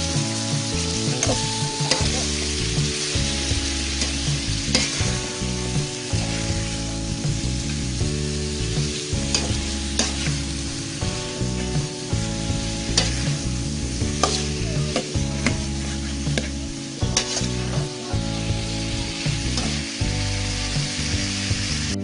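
Sliced bilimbi and ground spice paste sizzling in a hot wok, with a metal spatula stirring and scraping against the pan in repeated sharp clicks.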